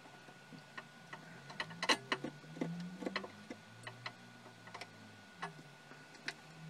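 Irregular light clicks and taps of hands and a small tool working at the metal cover of a show laser projector, unfastening it to open the case.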